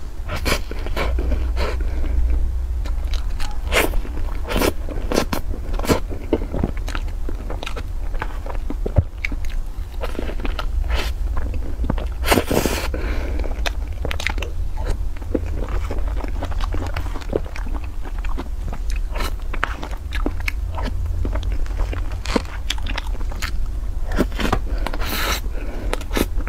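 Close-miked eating of whipped-cream cake: wet chewing and mouth smacks with many short sharp clicks scattered irregularly, and a stronger burst about halfway through. A steady low hum runs underneath.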